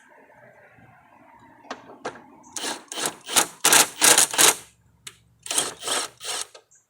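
A hand tool working metal parts on a mower deck during spindle replacement: two runs of quick rasping strokes, about three or four a second, with a short pause between them.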